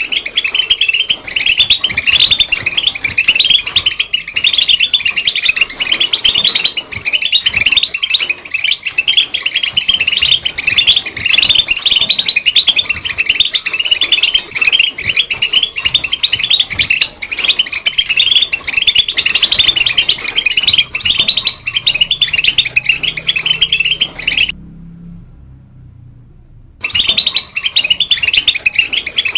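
European goldfinch singing: a fast, unbroken run of high chirps and trills. It breaks off for about two seconds near the end, then starts again.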